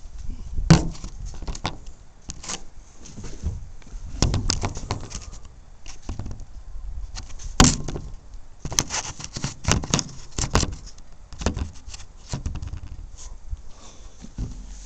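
Irregular knocks, clicks and scrapes of handling around a lawn tractor before it is started; no engine is running.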